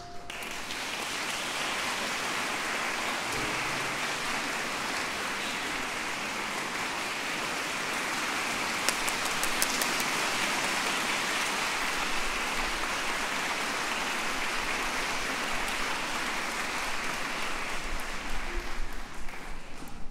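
Audience applauding steadily in a concert hall, with the last ringing note of the marimbas and xylophones dying away at the very start. The applause fades out near the end.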